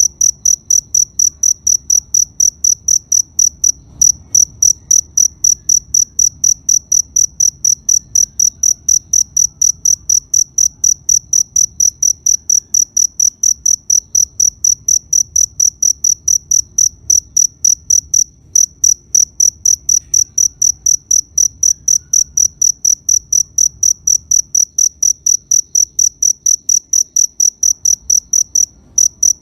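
Cricket chirping in a fast, even rhythm of short, high-pitched pulses, about three a second, pausing briefly a few times.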